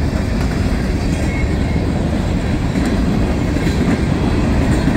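Freight cars of a long mixed freight train rolling steadily past, steel wheels clattering on the rails.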